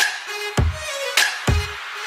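Background electronic music with a steady beat: deep kick-drum thumps and sharp hits over a short repeating melody.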